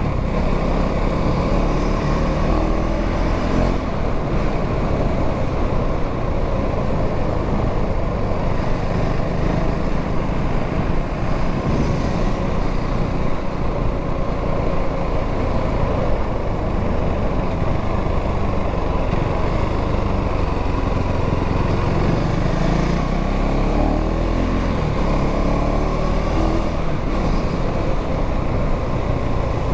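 KTM Duke 390's single-cylinder engine running steadily under way on its stock exhaust, heard together with a heavy rush of wind and road noise.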